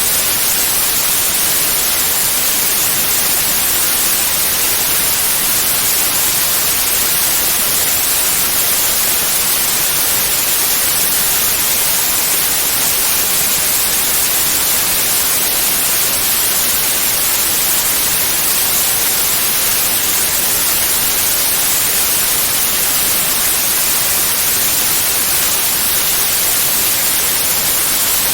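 Steady white noise: an even, unbroken hiss, brightest in the high treble, with no tone, rhythm or swell in it.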